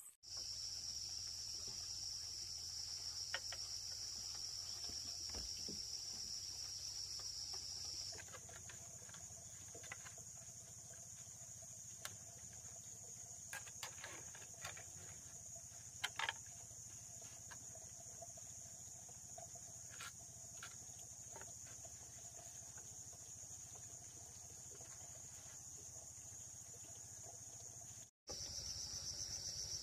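Insects trilling steadily at a high pitch, the trill shifting higher about eight seconds in, with a few faint scattered clicks and taps.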